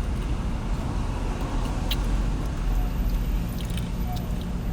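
Steady low rumble of a car, heard from inside the cabin, with close-up chewing and a few small clicks from eating.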